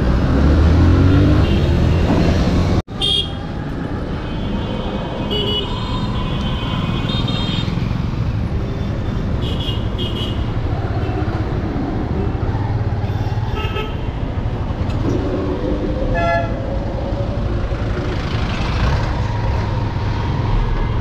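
Busy road traffic: a steady rumble of motor engines, with vehicle horns beeping several times.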